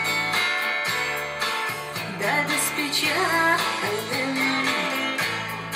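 A song played through an Aiwa NSX-999 mini hi-fi system's speakers and picked up in the room: a steady bass line under a gliding melody.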